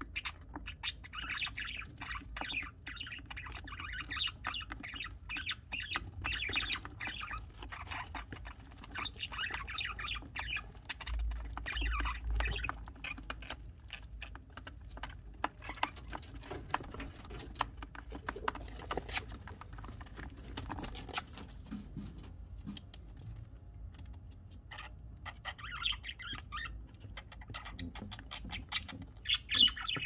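Budgerigar chicks in a nest box chirping and squawking in runs of rapid calls, mostly over the first dozen seconds and again near the end, with scratchy rustling as they shuffle on the bedding.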